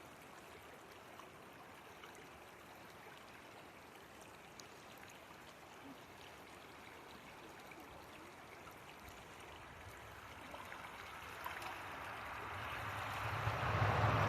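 Faint, steady flowing of a shallow river, swelling into a much louder rush of moving water over the last few seconds.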